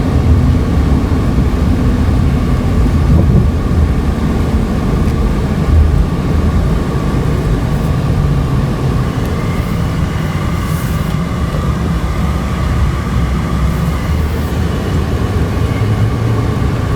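Cabin noise of a 2008 Hyundai Santa Fe being driven: its V6 engine running smoothly under light load, with a steady low rumble of road and tyre noise. A faint steady hum is part of the tyre noise, which the driver takes for tyre noise rather than a wheel bearing.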